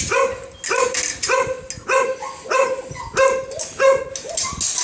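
A dog barking over and over at a steady pace, about eight barks of much the same pitch.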